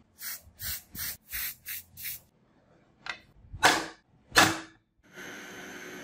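Aerosol spray can spraying in short bursts: six quick hisses, then two longer, louder ones. About five seconds in, an electric drill starts running steadily, its bit boring into the steel knife handle.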